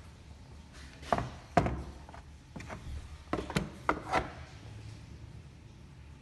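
A run of sharp knocks and clunks of hard objects being handled and set down, about eight in three seconds, the loudest about a second and a half in.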